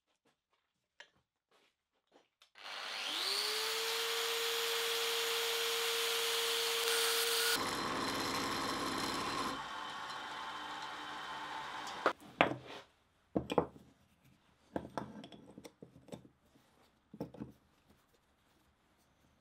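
A milling machine's motor winds up about two and a half seconds in and runs steadily, its end mill cutting an aluminium bar, until the sound stops about twelve seconds in. After that come a string of sharp clicks and knocks of small metal parts being handled and fitted together.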